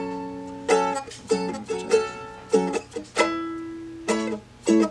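Seagull Merlin, a four-string strummed dulcimer, playing barred chords of a song's chorus in about eight strums. One chord is left ringing for nearly a second before the strumming resumes.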